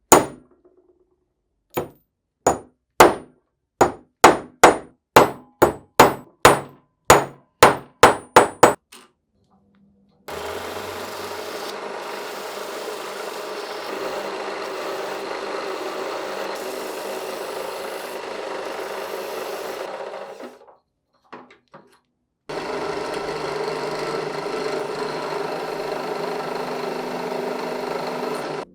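About a dozen sharp hammer blows in quick succession. Then a power tool runs steadily for about ten seconds, stops briefly, and runs again for about six seconds.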